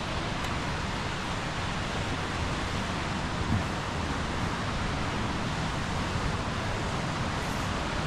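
Steady rushing of a creek cascading over rocks into a waterfall.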